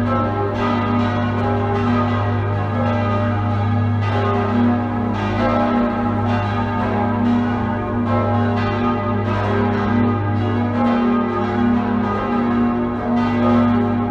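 Full peal of six swinging church bells (tuned G♯, B, D♯, F♯, G♯, E), strokes overlapping in a continuous, irregular tumble, with the deep hum of the largest bell sounding steadily beneath.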